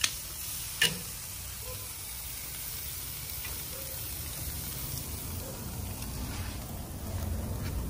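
Ribs sizzling on a charcoal grill grate in a steady hiss. Two sharp clicks of metal tongs come in the first second.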